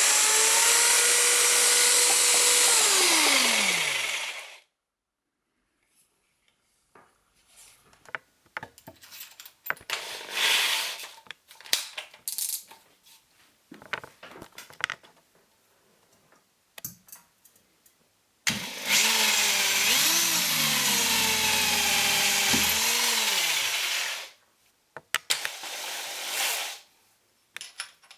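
Parkside PSBM 750 B3 hammer drill's motor running at speed, then released and winding down with a falling whine. After several seconds of scattered clicks and knocks, it runs again with its speed rising and falling, winds down, and is given a few short bursts near the end.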